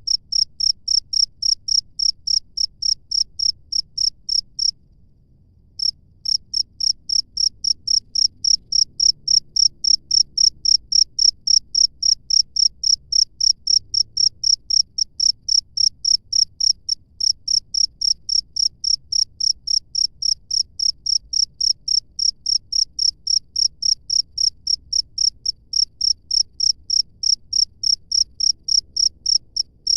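A cricket chirping steadily in high, evenly spaced chirps, about three to four a second. It stops for about a second near five seconds in, then picks up again.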